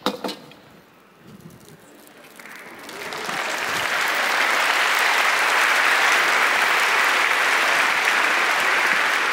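A large audience applauding, swelling in about three seconds in and holding steady. Before it, a couple of light clinks of cookware.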